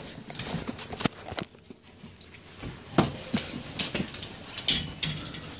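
Footsteps and scattered light clicks and taps on a hard floor, coming at an uneven pace.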